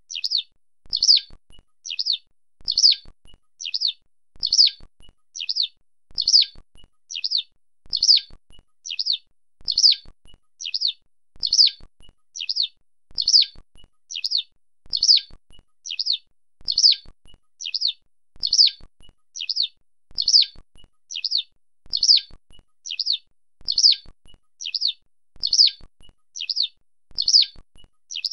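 Eurasian skylark giving its short rolling flight call, repeated at an even pace of about one call a second.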